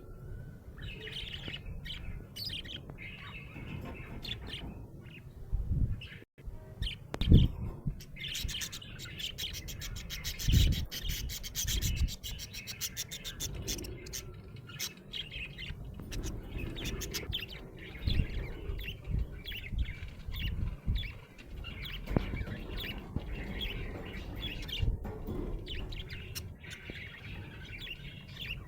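Budgerigar chirping and warbling in a long run of short chirps and trills, with a fast buzzy trill about a third of the way in, mixed with a few low knocks and rustles.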